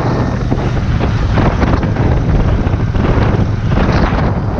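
Royal Enfield Interceptor 650's parallel-twin engine running steadily while the motorcycle cruises, with wind rushing over the microphone.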